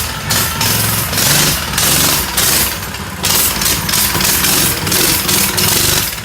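Coleman BT200X mini bike's 196cc single-cylinder four-stroke engine running while it warms up, its loudness rising and falling.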